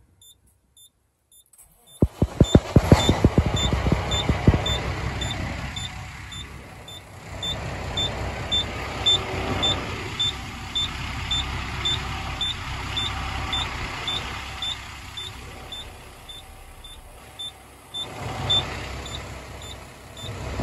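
International truck's Cummins diesel cranked over on the starter about two seconds in, catching within a couple of seconds and then idling steadily, heard from inside the cab. This is the first start after an oil and filter change, and oil pressure is building. A small warning beep repeats about three times a second throughout.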